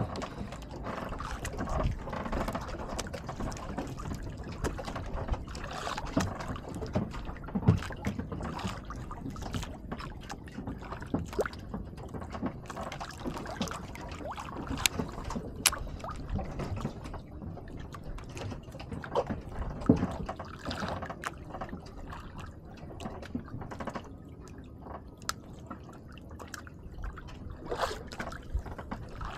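Water lapping and slapping against a small boat's hull, with scattered small clicks and knocks.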